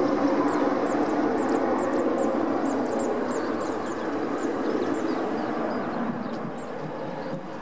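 Airbus A320 jet on short final passing low overhead and moving away, its engines' roar fading steadily as it descends toward the runway.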